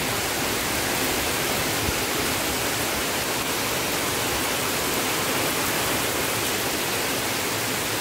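Heavy rain pouring down steadily, a dense even hiss.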